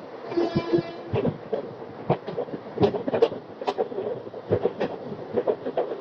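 Train wheels clattering over rail joints as a train moves through the station, giving a run of irregular sharp knocks. A brief pitched tone sounds about half a second in.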